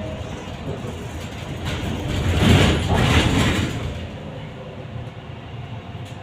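Cabin noise inside a trolleybus rolling slowly in traffic, swelling into a louder rumble for about a second and a half near the middle before settling back.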